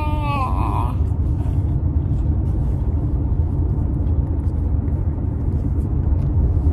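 Steady low rumble of a car driving, heard inside the cabin: road and engine noise with no change in pace.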